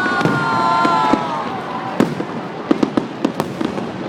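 Fireworks display: a whistling shell's whistle sliding slowly down in pitch over the first second and a half, with sharp bangs and crackles of bursting shells throughout.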